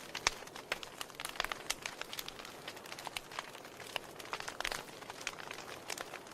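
Wood fire in a fireplace crackling: irregular sharp pops and snaps over a soft steady hiss, with a louder cluster of pops a little past the middle.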